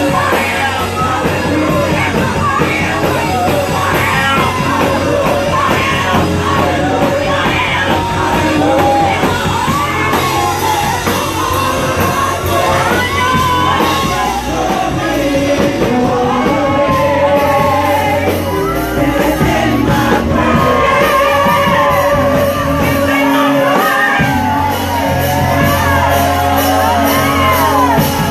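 Live gospel praise-and-worship song: a choir and lead singer over a full band with steady bass, with shouts from the singers or the congregation.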